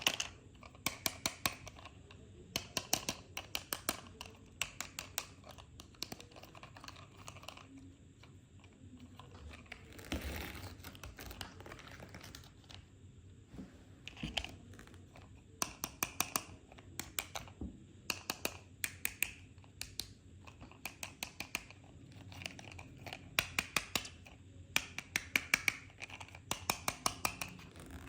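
Toy cars and their plastic packaging being handled: repeated runs of quick small clicks, with a crinkling rustle about ten seconds in.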